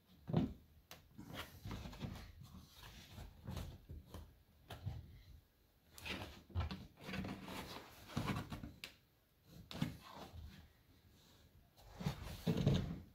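Palisade interlocking waterproof wall tiles being handled and pushed into place on the wall by hand: irregular knocks, taps and scrapes, loudest about half a second in and near the end.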